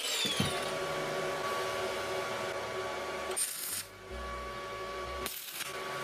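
A small motor-driven power tool running steadily with a humming tone, the sound changing abruptly twice partway through.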